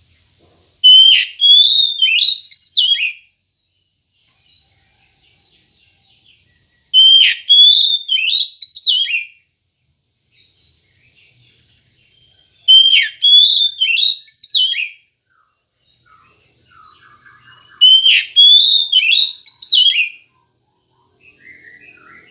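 Oriental magpie-robin (kacer) singing: four loud phrases of clear whistled notes, each about two seconds long and repeated roughly every six seconds, with soft twittering between them.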